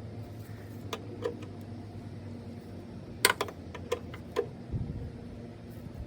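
A few sharp clicks and light knocks, the loudest a little over three seconds in, over a steady low hum.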